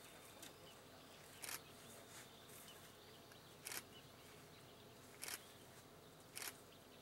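Quiet outdoor background broken by four short, sharp clicks, spaced roughly one and a half to two seconds apart.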